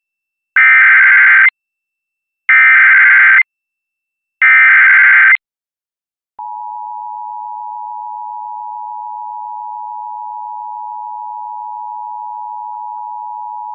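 Emergency Alert System signal: three identical bursts of SAME header data, each a harsh digital screech lasting about a second, followed about six seconds in by the steady two-tone EAS attention signal. Together they announce a flash flood warning.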